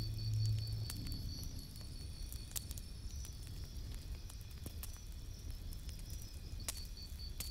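Calm instrumental music reaches its end: its last low note fades out about a second in. A quiet gap follows, with only a faint steady pulsing high tone and a few light clicks.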